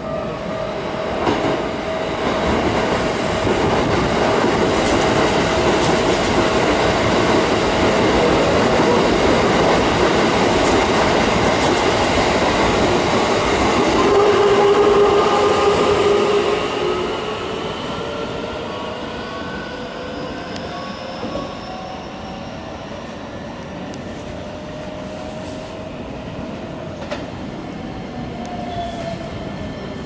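Keikyu 2100-series electric train running through the station, with wheels on the rails. After the loudest passage, about halfway through, it gets quieter and the traction motors whine, slowly rising in pitch as a train picks up speed.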